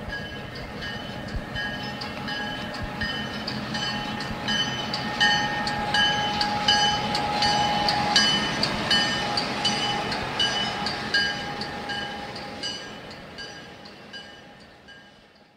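Struck metal ringing in a steady rhythm of about two strikes a second, each strike with a high, bell-like ring. It grows louder towards the middle, then fades out near the end.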